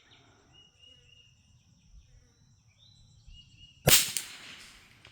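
A single shot from a Brno Model 1 bolt-action .22 LR rifle, a sharp crack about four seconds in that dies away over about a second. Faint bird chirps come before it.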